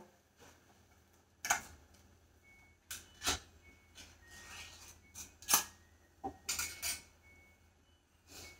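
A scattering of light clicks and knocks from kitchen items being handled, spaced out over several seconds, over a faint low hum.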